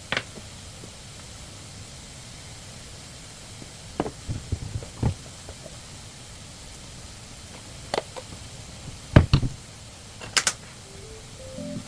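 Cookware and utensils being handled: scattered short knocks and clinks, the loudest a pair about nine seconds in, over a faint steady hiss.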